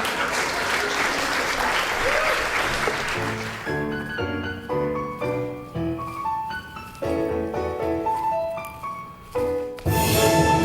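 Audience applauding for the first three seconds or so, dying away as a solo piano tune begins. About ten seconds in, louder and fuller music comes in suddenly.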